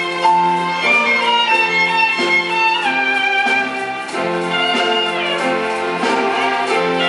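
Large ensemble of violins playing a melody together, the notes held and moving in steps.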